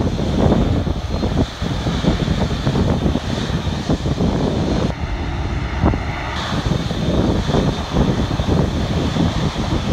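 Boeing 787 jet engines running at low taxi thrust as the airliner rolls past, mixed with gusty wind rumble on the microphone.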